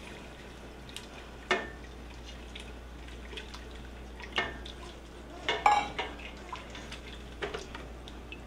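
Silicone spatula stirring and scraping tomato paste into wine in a stainless steel stockpot, with a few scattered knocks and scrapes against the pot. The loudest comes about six seconds in.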